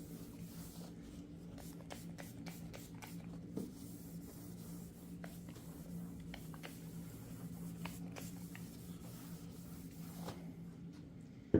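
A rag rubbing and wiping along the edge of a plastic tool case to clean off oil residue: faint, scratchy strokes and small ticks, over a steady low hum.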